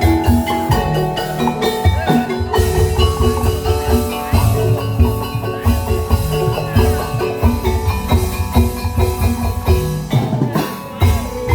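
A tongklek ensemble playing: struck bamboo and mallet-type instruments carry a tune over a steady, repeating drum beat.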